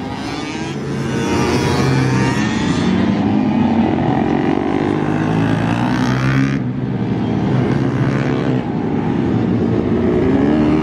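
Pit bike engine running hard on track, the revs rising and falling with the throttle. The engine eases off briefly a little past halfway, then picks up and climbs again.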